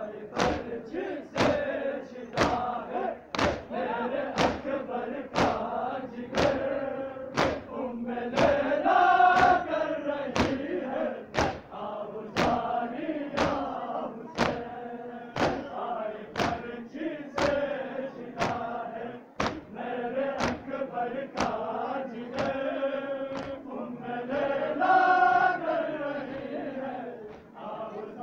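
A large crowd of men chanting together in unison, while beating their chests in time: sharp, evenly spaced thumps a little more than once a second.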